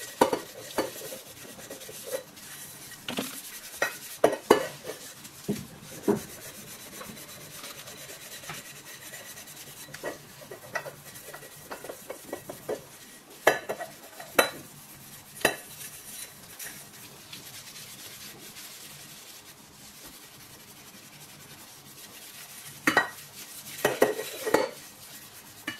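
Hard scraper scraping softened grease and burnt-on carbon off the bottom of a stainless steel saucepan, a steady quiet scratching broken by sharp metallic clinks and knocks of the pot and scraper, with louder clusters of knocks around the middle and near the end.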